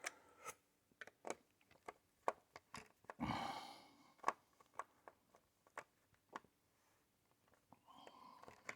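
Faint scattered clicks and ticks of a small screwdriver working at the screws of a laptop's bottom case, with a brief rustling scrape a little over three seconds in.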